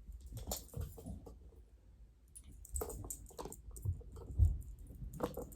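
A dog moving about and working the scent samples: scattered light clicks and knocks, with a heavier thump about four and a half seconds in.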